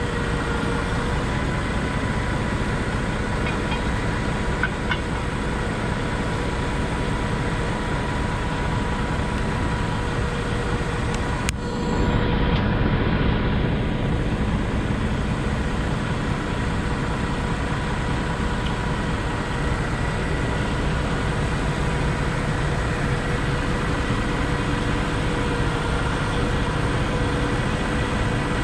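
Heavy-duty tow truck's engine running steadily, with a steady whine over it; it gets a little louder about twelve seconds in.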